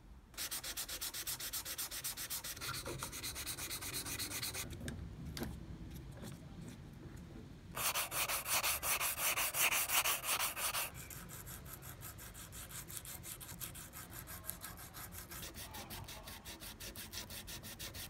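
Sandpaper rubbing back and forth over a bare wooden screwdriver handle in quick, even strokes. There is a short break with a few clicks about five seconds in, the loudest run of strokes comes around the middle, and softer strokes follow.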